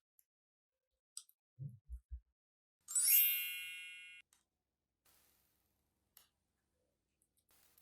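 A bright bell-like ding that starts about three seconds in and rings out over about a second, preceded by a small click and a few soft low thumps.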